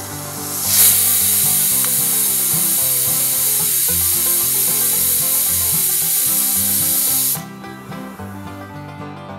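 Prestige pressure cooker whistling: the weight on the vent lifts and steam hisses out loudly and evenly for about six and a half seconds, starting about a second in and cutting off sharply. The cooker is venting at full pressure, one of the whistles counted to time the cooking.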